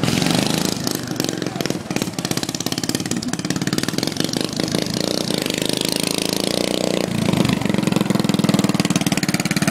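Racing lawnmower's small engine running steadily, its note shifting and settling lower about seven seconds in.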